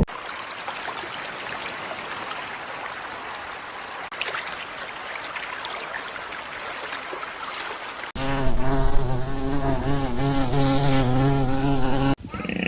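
Insects buzzing: first a dense, hiss-like hum of many wings, then, about eight seconds in, a single louder buzz close by whose pitch wavers up and down.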